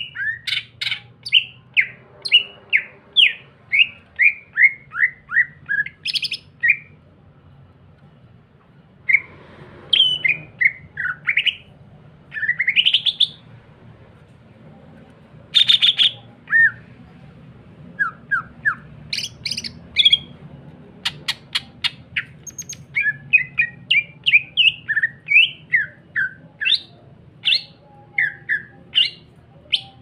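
Male green leafbird (cucak ijo) singing hard, in fast runs of short downward-sliding whistled notes mixed with harsh chattering rattles, with a couple of brief pauses.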